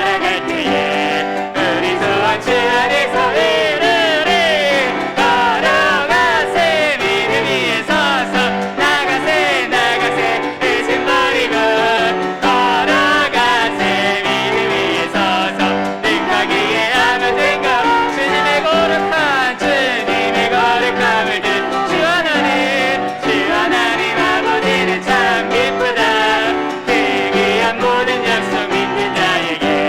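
Contemporary worship song performed live: vocalists singing a melody over piano accompaniment, continuous throughout.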